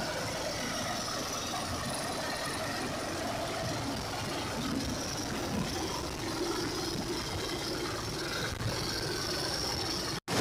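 Rescue helicopter hovering overhead: steady rotor and engine noise, broken by a brief dropout near the end.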